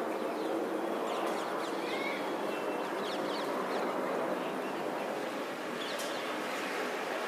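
Steady outdoor background noise with small birds chirping briefly several times over it.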